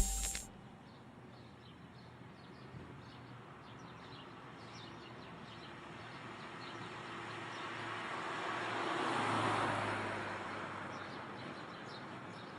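A vehicle passing at a distance, growing louder to a peak and fading away, with faint bird chirps.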